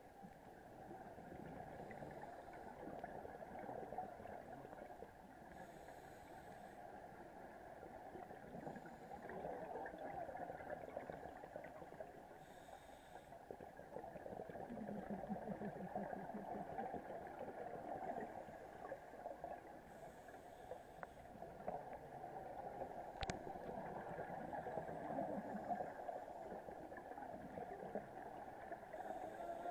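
Underwater sound picked up through a dive camera's housing: a steady low wash of water noise, with scuba regulator breaths and bubble hiss roughly every six to seven seconds. There is one sharp click a little after the middle.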